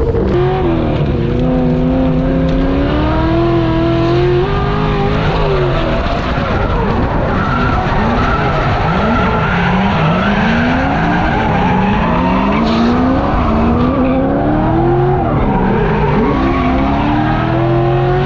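Drift car engine revving up and down again and again through a slide, over a steady hiss of tyres skidding and squealing.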